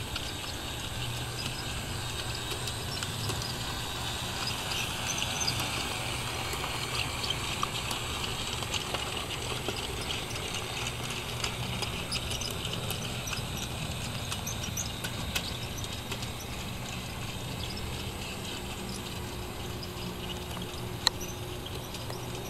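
Replica Walt Disney World Monorail toy running along its elevated beam track: a steady low motor hum with a dense rattle of small clicks from its wheels on the beam, and one sharp click near the end.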